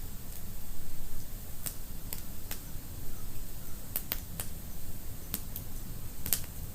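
Wood fire in a fireplace crackling and popping: sharp, irregular snaps over a low steady rumble of the flames.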